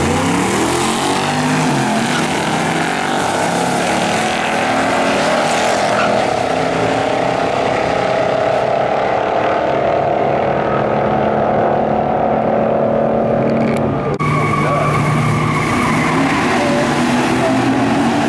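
A 1963 Chevrolet Impala and another muscle car launching hard off the drag-strip line, their engines revving up and pulling down the track. About fourteen seconds in, the sound changes abruptly to an engine rumbling with a steady tire screech from a burnout.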